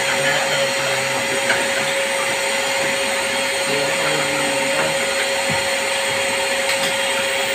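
Vacuum cleaner running steadily through a long hose, a constant whine over the rush of air, sucking the clog out of a split-type air conditioner's drain pipe.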